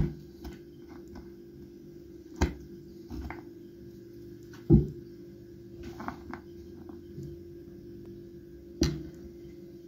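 Kitchen knife knocking against a wooden cutting board while cutting soft cubes: four sharp knocks, the loudest about halfway through with a dull thud, and a few lighter clicks in between, over a steady low hum.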